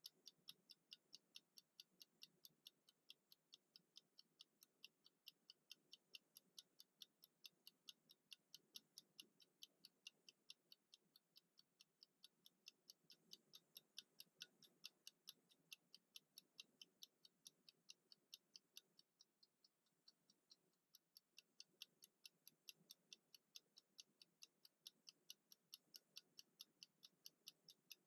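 Mechanical clockwork kitchen countdown timer ticking: faint, fast and even, about four ticks a second. The ticks fade a little for a couple of seconds about two-thirds of the way through.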